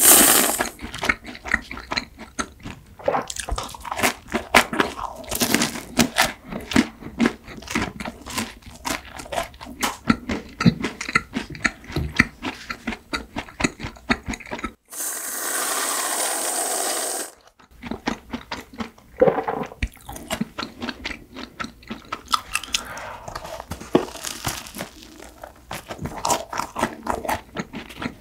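Close-miked crunching bites and chewing of bread. About halfway through, an aerosol whipped-cream can sprays in one steady hiss for about three seconds, then the crunchy chewing resumes.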